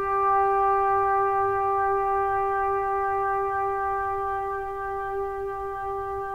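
Music: a brass instrument holding one long, steady note that slowly fades.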